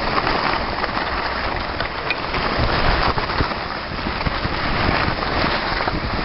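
Skis scraping and hissing over packed snow while wind rushes across the camera's microphone during a downhill run: a steady rushing noise that rises and falls.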